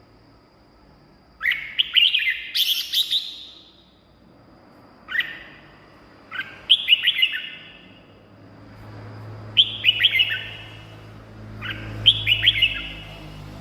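Red-whiskered bulbul singing: five short phrases of quick, clear whistled notes, a few seconds apart.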